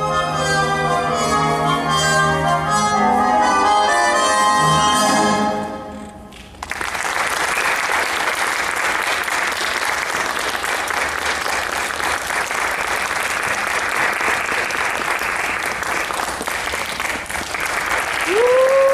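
Orchestral ballet music plays and ends about six seconds in, followed by steady audience applause. Near the end a single voice calls out over the clapping.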